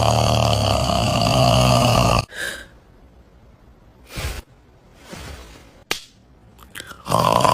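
A man snoring loudly: a long rasping snore for about two seconds. Then comes a lull of several seconds with a few soft breaths and a sharp click, and the loud snoring starts again near the end.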